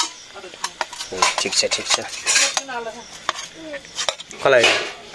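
Steel spoon scraping and clinking against stainless steel plates and a steel pot as cooked rice is served, a run of sharp clicks and scrapes. A brief voice-like sound comes near the end.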